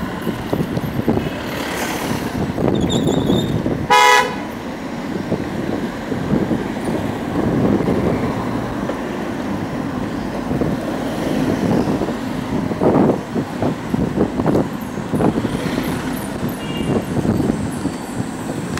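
Road traffic noise heard from the back of a moving moped, with one short vehicle horn toot about four seconds in.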